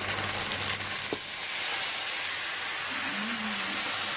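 Beer poured into a hot pot over a browning pork roast, hissing and sizzling steadily as it hits the hot fat, with a small click about a second in.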